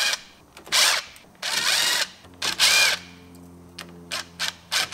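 Ridgid cordless driver spinning out the small bolts of a sway bar hub's cover plate in three short runs, then a few quick blips near the end.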